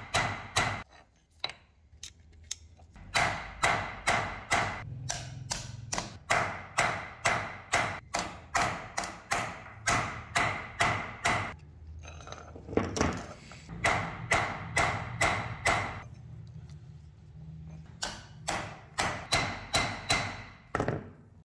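Hammer blows on the steel pins of a motorcycle clutch sprocket gear set on a vise, fixing the new plate in place. The blows are steady, about two or three a second, each with a short metallic ring, and come in runs with a few short pauses.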